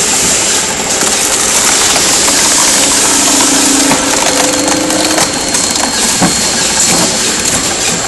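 Screw-cone log splitter, driven by a geared motor, boring into a log and splitting it: steady grinding with the wood crunching, and a few sharp cracks in the second half.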